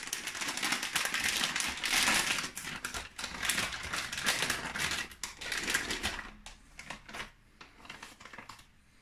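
Plastic spice packet crinkling and rustling as it is opened and handled, a dense run of crackles that thins out and fades after about six seconds.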